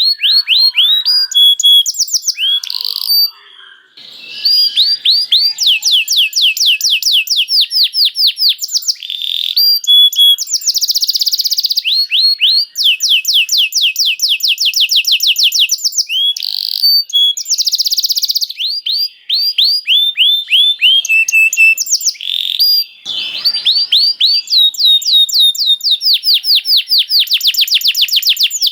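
Domestic canary singing continuously in long, fast rolling trills of rapidly repeated, high, sweeping notes, broken only by brief pauses.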